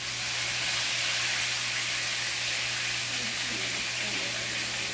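Chicken pieces frying in a little hot oil in a pot: a steady sizzle.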